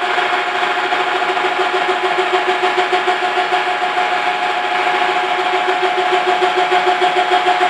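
GSP radial drill's arm-lift motor and gearing running: a steady, high machine whine with a quick, even flutter, as the arm is raised on the repaired lift gear.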